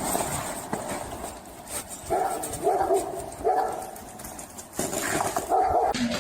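A dog vocalizing in several short pitched calls.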